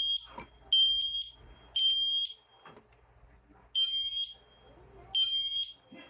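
Siterlink combination smoke and carbon monoxide detector sounding its smoke-alarm test after its test button is pressed. The piezo sounder gives high-pitched beeps: three half-second beeps, a pause, then the beeping starts again.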